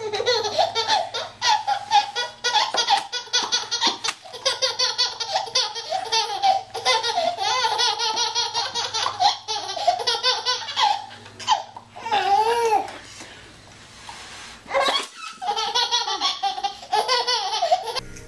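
Baby laughing hysterically in long runs of rapid, high-pitched laughs, with a short lull about two-thirds of the way through before the laughing starts again.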